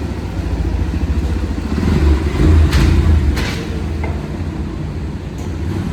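Bajaj Pulsar NS125's single-cylinder engine running at low speed as the bike is moved, swelling louder for a second or so about two seconds in. Two short hisses come close together during the swell.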